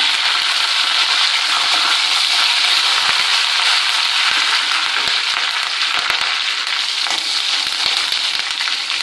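Tempering sizzling steadily in hot sesame oil in a steel kadai, with curry leaves and asafoetida just added to mustard seeds, dals, peanuts and dried red chillies. A flat metal ladle stirs it, giving a few light scrapes and clicks.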